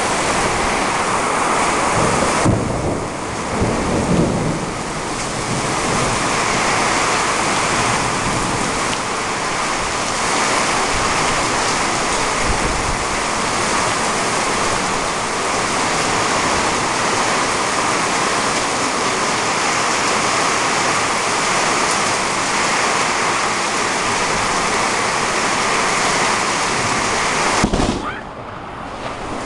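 Heavy thunderstorm downpour: a loud, steady hiss of driving rain, with thunder rumbling a few seconds in. The hiss dips briefly near the end.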